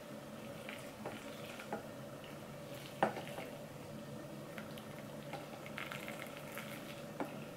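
Hot water pouring from an electric kettle in a thin, steady stream into a stainless steel bowl of braids wrapped in plastic bags. A few faint clicks, the loudest about three seconds in.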